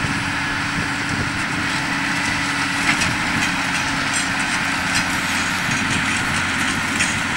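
Ford New Holland 8770 tractor's six-cylinder diesel engine running steadily, with a few short clicks or knocks over it.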